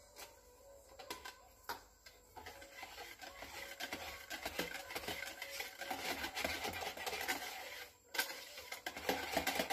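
Wire hand whisk stirring mascarpone cream with gelatin in a plastic jug: a few light clicks, then from about two seconds in a fast run of scraping and tapping strokes against the jug's sides, with a brief pause near the end.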